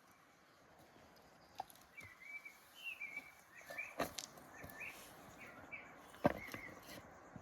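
A bird chirping in a run of short, gliding calls, with a few sharp clicks or knocks, the loudest about six seconds in.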